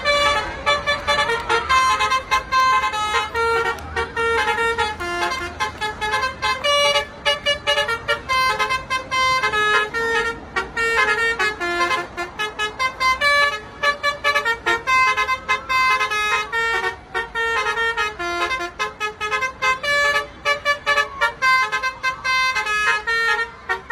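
Tourist bus's telolet horn, a multi-tone musical air horn, playing a fast tune of short notes that jump in pitch, several notes a second.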